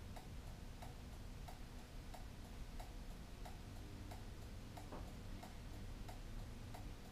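Motorcycle turn-signal flasher ticking faintly and evenly, about three ticks every two seconds, with the left turn signal switched on.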